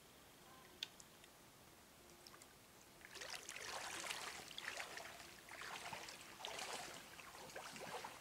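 A sharp click about a second in, then, from about three seconds in, irregular splashing in shallow water as an angler wades ashore and drags a hooked fish through the shallows.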